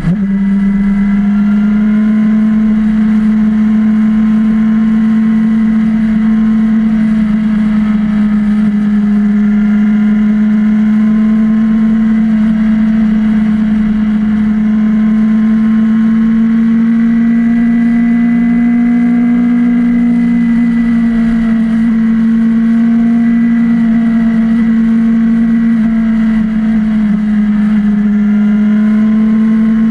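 Motorcycle engine running steadily at cruising speed. Its note holds nearly level, rising slightly about two-thirds of the way through, with a quick dip in pitch right at the start.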